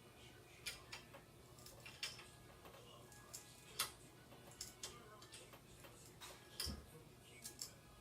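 Faint, irregular clicks and taps of a small metal C-clamp being fitted and tightened over wood shims on a bow limb, with one dull knock about two-thirds of the way through.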